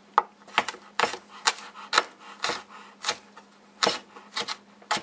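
Chef's knife chopping wild onions on a plastic cutting board: a series of sharp knocks, about two a second and unevenly spaced.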